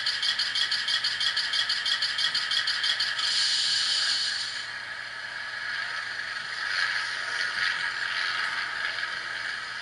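Recorded Class 71 electric locomotive sounds played by a sound decoder through an OO-scale model's small speaker. A rapid mechanical rattle, about six beats a second, stops about three seconds in. A steady hiss follows for a second or two, then a quieter, uneven hum of the standing locomotive's equipment.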